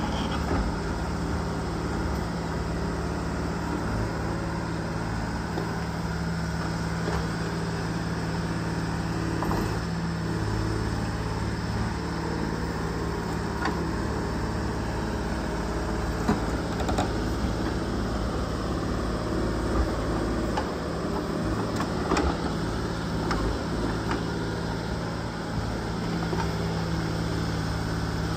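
Case 125B tracked excavator's diesel engine running steadily as it digs, with scattered knocks and clunks as the bucket works through earth and roots.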